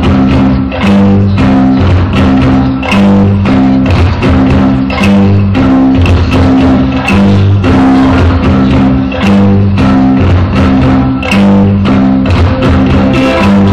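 Live rock band playing an instrumental passage: a repeating low bass line and guitar over a steady drum beat, loud and recorded from the audience.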